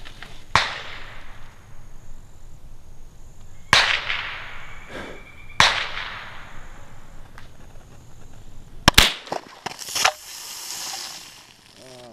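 Ruger 10/22 Tactical semi-automatic rifle firing .22 Long Rifle rounds: three single sharp shots a few seconds apart, each with a fading echo, then a quick pair of cracks about nine seconds in and one more a second later. A short hiss follows near the end.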